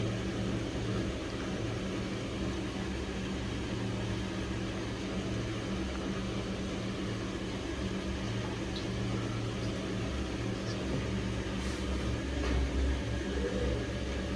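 Samsung washing machine running near the end of its cycle, the drum still turning with a steady motor hum and whir.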